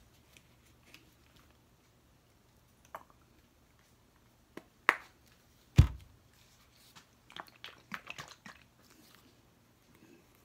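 Plastic paint squeeze bottles being handled and set down on a table: scattered clicks, two sharp knocks about five and six seconds in, the second a heavier thud and the loudest, then a quick run of small clicks and crackles.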